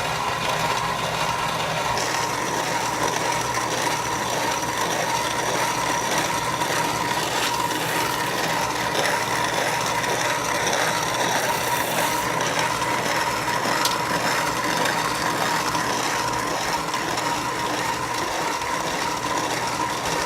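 Electric-motor feed grinder, driven down through a jack shaft and sheaves, grinding shelled field corn. It runs steadily with a continuous mechanical clatter over a steady whining tone.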